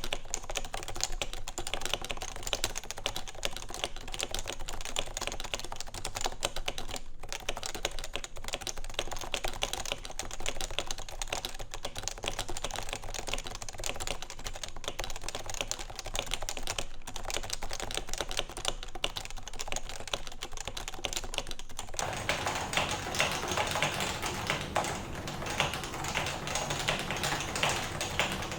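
Continuous typing on a Topre keyboard with Realforce 88UK internals: lubed electrostatic-capacitive rubber-dome switches on a stainless steel plate, under Realforce keycaps, giving a dense run of keystrokes. About three-quarters of the way through, the keystrokes turn deeper and fuller.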